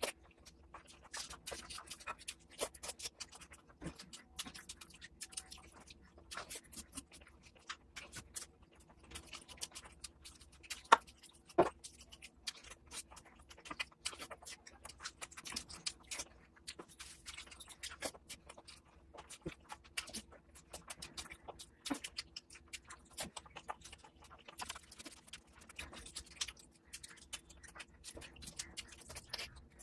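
A person eating mutton fat curry with luchi: close-miked chewing with many small wet clicks and smacks, and two louder clicks about eleven seconds in.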